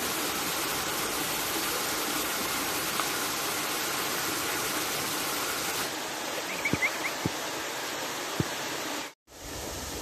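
Waterfall pouring steadily into a shallow pool, a continuous rushing hiss of falling water. A few short high chirps sound just before seven seconds in, and the sound cuts out for a moment near the end.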